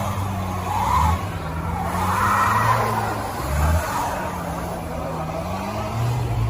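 A car engine running and revving up and down several times, with a hiss of tyre noise on snow that swells and fades.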